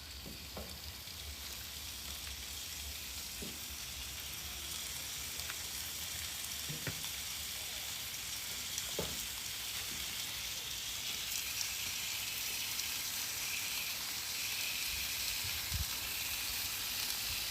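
Oiled, salted lamb loin chops sizzling on a barbecue over low heat: a steady frying hiss with a few faint pops, growing slightly louder as it goes.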